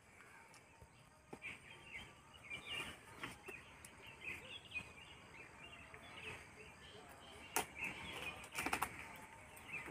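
Birds chirping in the background, with rustling of dry twigs and branches as someone clambers over a fallen tree, and a few sharp cracks or knocks about three-quarters of the way through.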